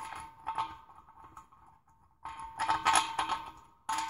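Metal clinking and scraping in three bursts at the air compressor tank's drain, with a faint ring; the middle burst is the loudest.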